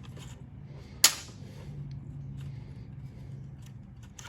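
One sharp metallic click about a second in, then a few faint ticks, as small parts of an old corroded push-button switch are handled and pulled apart. A low steady hum runs underneath.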